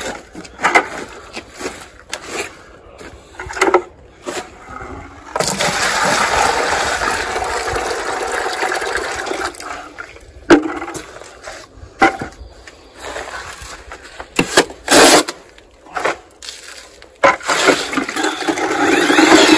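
Water from a hose running into an empty plastic bucket, a steady rush for about five seconds starting some five seconds in and again near the end, with a few knocks of buckets being handled in between. It is the water going into the buckets before the stucco is mixed.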